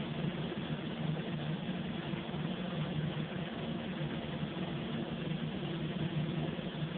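Steady hiss of a compressed-air paint spray gun spraying a car hood, over the constant hum of a spray booth's ventilation.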